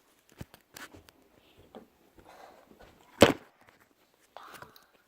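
Scattered knocks and clunks of objects being handled, with one loud knock about three seconds in.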